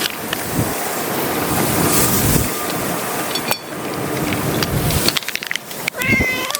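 Strong wind rushing over the microphone, with one short, wavering cat meow near the end.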